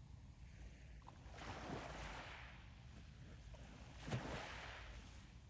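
Small waves breaking and washing over a pebble beach: a soft surge about a second and a half in and a sharper break about four seconds in. A low wind rumble on the microphone runs underneath.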